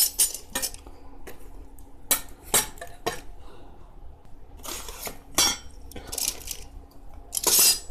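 Thin galvanized-iron track plates clinking and rattling against each other and the metal track as they are handled, in a series of irregular short metallic clinks, the loudest clatter near the end.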